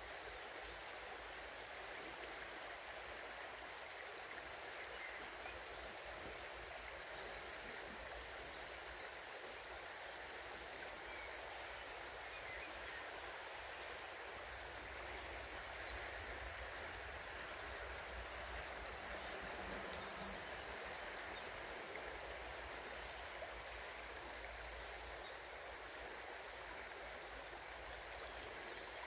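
River water flowing with a steady rush. Over it a small bird repeats a short high call of two or three quick descending notes about eight times, every two to four seconds.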